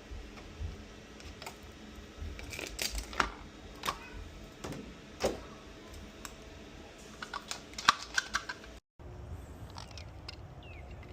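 Handling noise: scattered light clicks and taps, irregular and uneven in strength, over a low background rumble.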